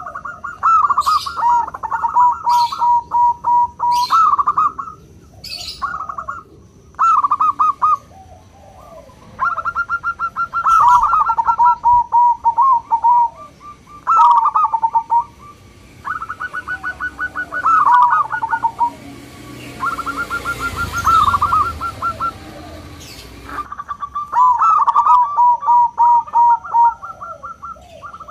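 Zebra dove (local perkutut) singing phrase after phrase: a quick stuttering run of higher notes that drops into a few lower coos. There is a soft hiss for a few seconds midway.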